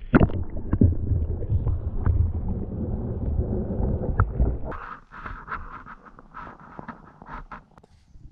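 Water heard through a submerged camera: a muffled low rumble and gurgling for the first four to five seconds, then a thinner run of light clicks and splashy ticks.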